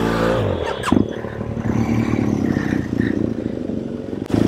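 BMW R1200GS motorcycle's boxer-twin engine running at steady revs, with a brief knock about a second in.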